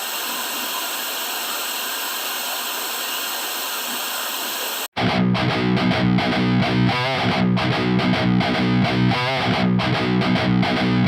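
Background rock music with distorted electric guitar. For about five seconds a thin, hissy filtered intro plays, then the full band with heavy bass cuts in suddenly.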